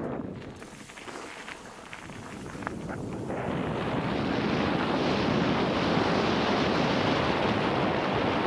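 Wind buffeting a helmet-mounted action camera's microphone as a mountain bike rides a trail. It is quieter for the first few seconds, with a few light clicks and rattles, then becomes a steady loud rush of wind from about three seconds in.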